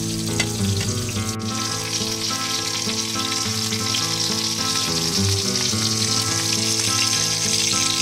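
Lamb chops and sausages sizzling steadily as they cook, with background music underneath.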